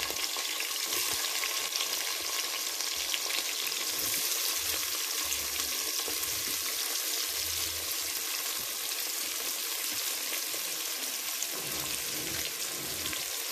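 Sliced onions sizzling steadily in hot oil in a pressure cooker, with a spoon stirring them.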